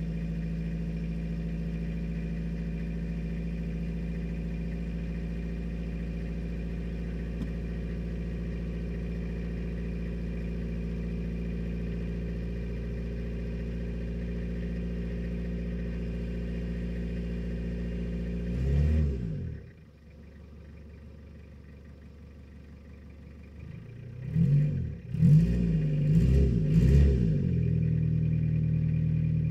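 Toyota Hilux LN110 diesel engine running just after a cold start at −22 °C, at a steady idle. About 19 seconds in it rises briefly and then drops away to a much quieter level; some five seconds later it is revved in several quick blips and settles into a louder steady run.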